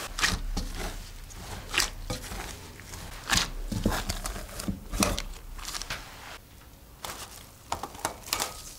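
Gloved hands kneading soft bread dough in a glass bowl: a squishing, crinkling push about every one and a half seconds, with softer rustling between the pushes.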